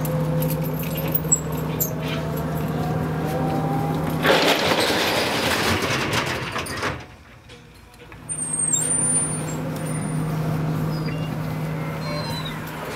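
Street noise with a vehicle engine running at a steady low hum. About four seconds in, a loud hiss lasts some two and a half seconds, then there is a brief quieter gap before the hum returns. A few faint high chirps sound near the middle.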